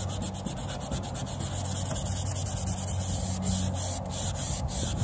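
Wet sandpaper rubbed by hand back and forth over a plastic headlight lens with medium-light pressure, in a quick run of short scrubbing strokes. A steady low hum sits underneath.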